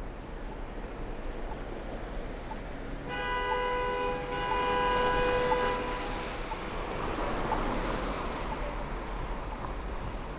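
Street traffic noise with a vehicle horn sounding a steady multi-tone blare for about three seconds, starting about three seconds in, followed by a louder rush of passing traffic.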